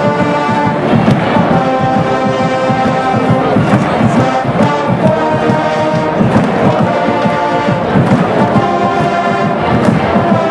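Marching band playing: brass with drums keeping a steady beat.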